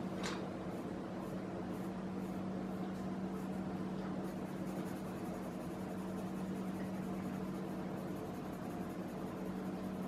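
Colored pencil strokes scratching lightly and repeatedly on drawing paper, over a steady low hum. There is a short sharp scratch just after the start.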